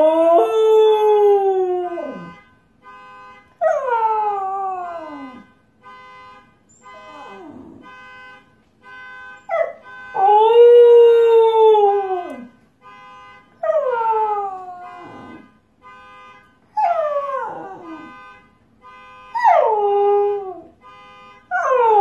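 Husky howling in answer to a car alarm: a run of about nine long howls, each sliding down in pitch as it ends, coming every two seconds or so. Behind them the car alarm keeps up its steady pulsing tones.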